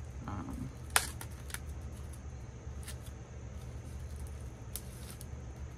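A vinyl album's gatefold jacket being handled: a few sharp clicks and light rustles over a low steady hum.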